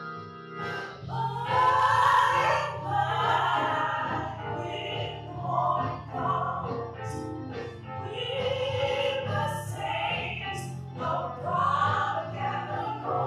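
Two women singing a church song in harmony, with sustained low keyboard notes underneath.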